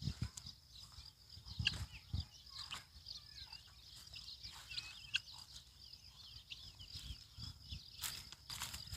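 Birds chirping in many short calls over a steady high-pitched drone, with a few low thumps.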